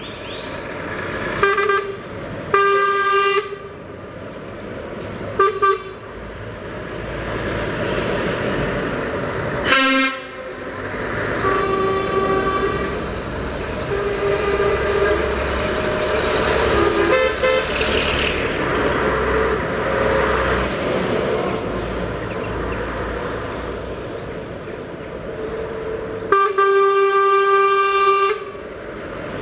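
Truck air horns blasting several times as lorry tractor units drive past, the longest blast near the end, with diesel engines rumbling between the blasts.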